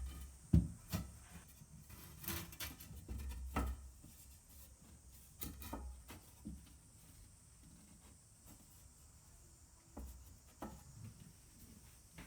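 Irregular knocks and clicks, about a dozen, scattered unevenly, with a low rumble between them.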